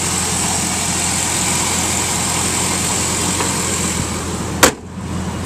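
Pontiac Firebird Trans Am WS6's 5.7-litre LS1 V8 idling steadily, with a single sharp click near the end.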